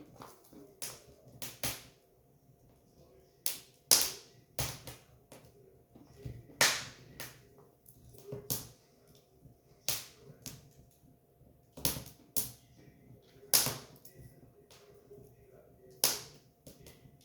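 Firewood burning and crackling, with irregular sharp pops, a loud one every second or two among smaller ticks, over a faint steady hum.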